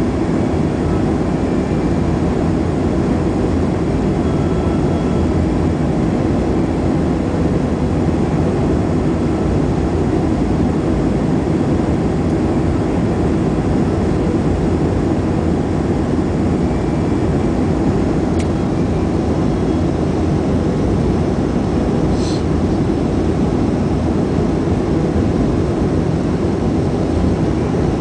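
Steady cabin drone of a Boeing 737-400 airliner on approach, heard from a window seat: its CFM56-3 turbofan engines and the rush of air over the wing with its flaps extended blend into an even, deep roar.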